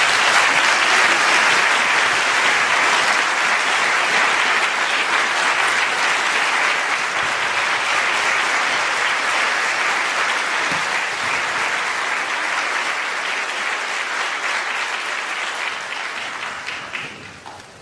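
Concert-hall audience applauding steadily, starting suddenly and dying away over the last few seconds.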